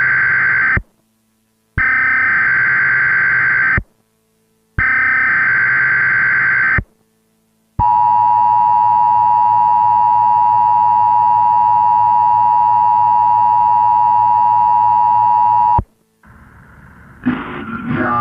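Emergency Alert System (EAS) alert: the SAME digital header's screeching data bursts (the tail of the first, then two more, each about two seconds with a second's gap). They are followed by the steady eight-second two-tone EAS attention signal, which cuts off abruptly. Music starts near the end.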